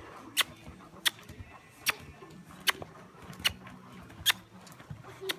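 A person clucking with their tongue to a horse: sharp single clicks about once every 0.8 seconds, the cue to keep the horse moving forward.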